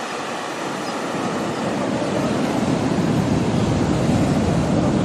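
Ocean surf washing onto a beach: a steady rushing that swells louder and deeper over the first few seconds.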